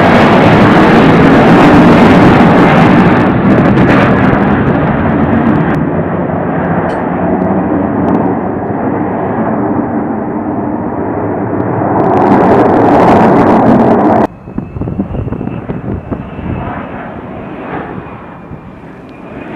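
Lockheed Martin F-35B in hover mode, its F135 jet engine and shaft-driven lift fan running loud and steady, easing off slightly and then swelling again. About three-quarters of the way through it cuts off suddenly to a quieter, more distant jet sound with a thin high whine.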